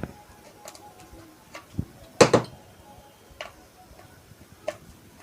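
Scattered clicks and light knocks of small objects handled on a workbench, loudest a quick double click about two seconds in, with lighter single ticks before and after.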